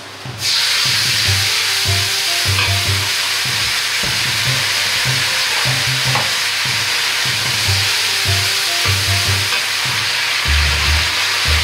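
Chili sauce hitting hot oil with garlic and ginger in a Chinese wok, setting off a loud, steady sizzle that begins suddenly about half a second in.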